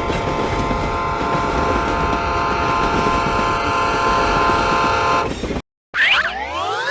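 Train horn holding a steady chord of several tones over the train's running noise, cut off abruptly about five and a half seconds in. After a short gap, a sound effect of rising pitch glides.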